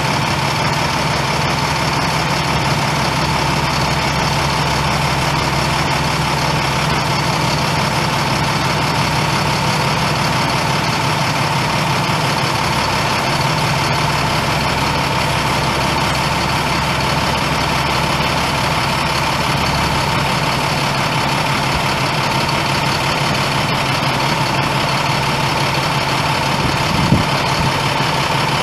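International MaxxForce 10 9.3-litre inline-six turbo diesel of a 2008 International 7500 truck running at a steady idle, with a constant high tone over the engine and a single short knock near the end.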